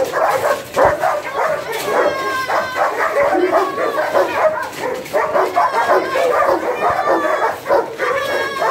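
Dogs, a German Shepherd among them, whining, yelping and barking excitedly in a continuous overlapping chorus.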